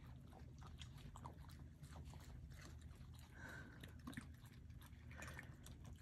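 Faint crunching and smacking of raccoons chewing cookies and peanuts: scattered small clicks over a low steady hum.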